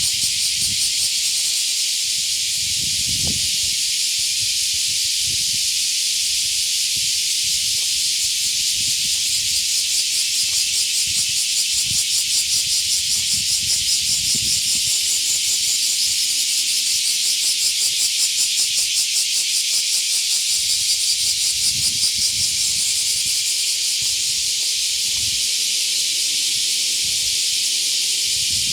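Cicadas shrilling loudly and continuously, a high, dense sizzle with a fast, even pulsing that swells through the middle. A few soft low thumps sound underneath.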